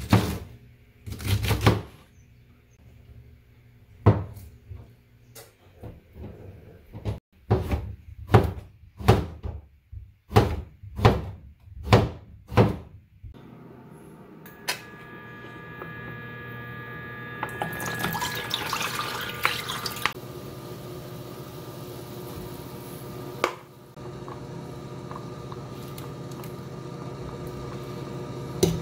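Kitchen knife chopping enoki mushrooms on a plastic cutting board, a dozen or so sharp knocks over the first half. Then packaged bone broth is poured into a steel pot, and the pot boils steadily.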